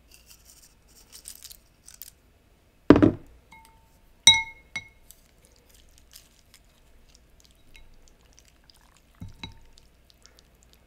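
Crisp tortilla strips sprinkled from a small glass bowl, faintly crackling, then a dull thump and a sharp clink as the glass bowl is set down, ringing briefly. Near the end come two light knocks as chopsticks work the noodles in the ceramic bowl.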